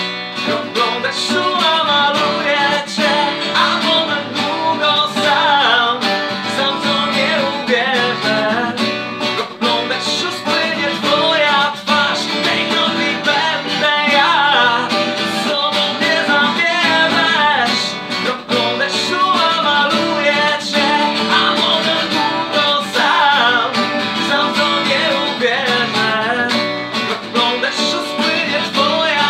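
Two acoustic guitars strummed and picked together, with a man's voice singing along at times.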